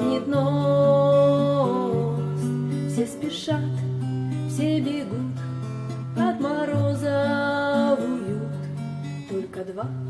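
Music: a strummed acoustic guitar plays a bass line of held notes, changing about every second, with a gliding melody line above it in two phrases.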